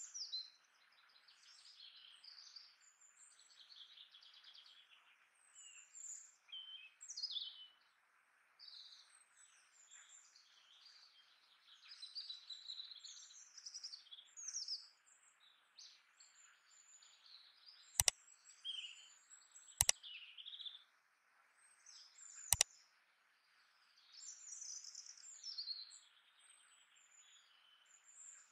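Faint birdsong: many short chirps and trills, one after another, over a steady soft hiss. Three sharp clicks come about two-thirds of the way through.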